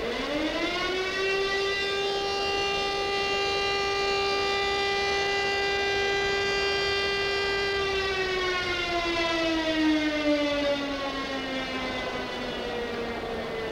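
Motor-driven siren winding up quickly to a steady wail, holding it for several seconds, then winding slowly down in pitch.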